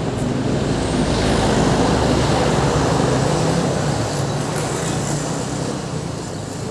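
Ashley ACT600 active speaker playing loud, bass-heavy audio during a sound check, dense and rumbling with a few steady low tones.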